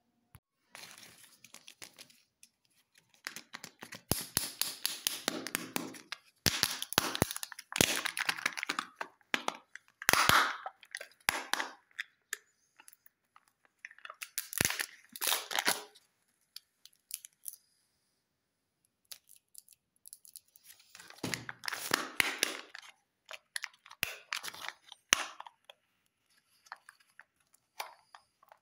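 Kinder Joy egg packaging peeled and torn open by hand: crinkling and tearing of the thin wrapper and plastic film in several bursts with pauses between, and a few sharp clicks.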